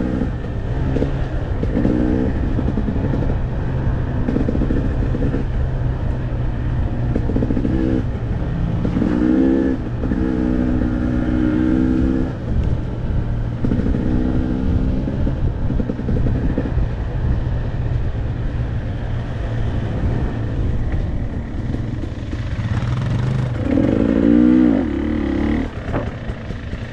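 Dirt bike engine being ridden on a trail, rising in pitch as the throttle opens and dropping back again several times over a steady low drone. The strongest rev comes near the end.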